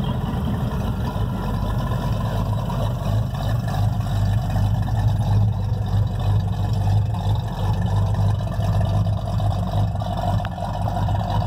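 Hot rod pickup's engine running at a low, steady idle as the truck creeps past at walking pace, a little louder around the middle.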